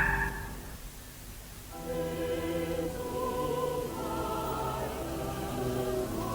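A choir singing slow, held chords comes in about two seconds in. It follows the fading tail of loud honking cries at the very start.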